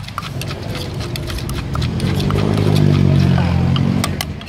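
Wooden pestle knocking repeatedly in a clay mortar, pounding green papaya salad. A passing motor vehicle's engine rises over it from about two seconds in, is loudest around three seconds and fades away shortly before the end.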